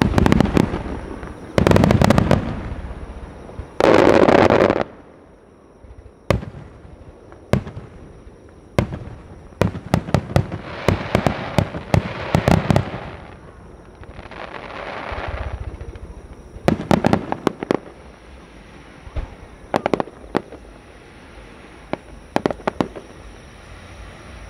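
Japanese star mine firework barrage: aerial shells bursting with loud booms and dense crackling in three quick spells over the first five seconds. Then come sharp single bangs, longer stretches of crackling glitter, and more scattered reports near the end.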